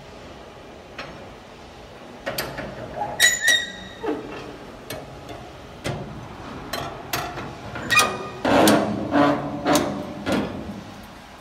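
Irregular metallic knocks and clanks, some ringing briefly, starting about two seconds in and coming thickest near the end: metal being struck or handled.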